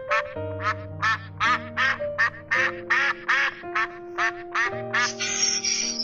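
Mallard ducks quacking in a rapid series, about three quacks a second, over background music with held notes. In the last second the calls give way to a harsher, raspier sound.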